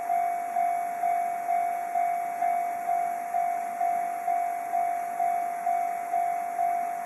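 Japanese electronic level-crossing bell ringing, a single tone struck about twice a second, each strike fading before the next: the crossing's warning signal for an approaching train.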